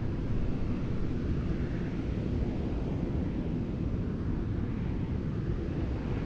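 Steady low rumbling noise with wind buffeting the microphone at a rocket engine test stand.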